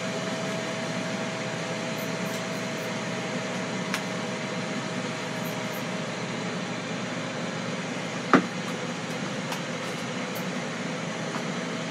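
Steady mechanical hum with a faint steady tone running under it, and one sharp knock about eight seconds in as a plastic breader bowl is set down on the countertop.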